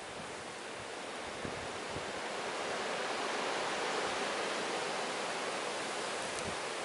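Blizzard wind blowing hard, a steady rushing hiss that builds into a stronger gust about three or four seconds in and then eases a little.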